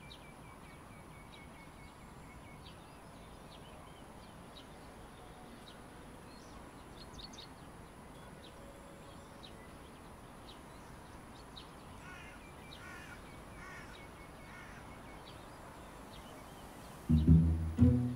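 Quiet garden ambience with birds calling: scattered short chirps, and a run of repeated calls about twelve seconds in. Music comes in loudly near the end.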